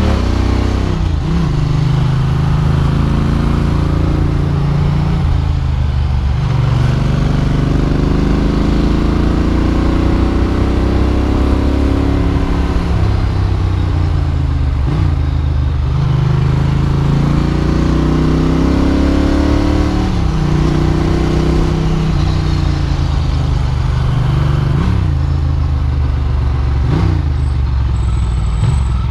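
Ducati Monster's V-twin engine heard from on board while riding. Its pitch climbs for a few seconds under throttle, then drops with gear changes and easing off, over and over.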